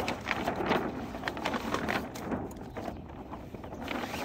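Dinghy sailcloth rustling and crinkling as the furled mainsail is unwrapped by hand from around the mast, an irregular run of crackles and swishes.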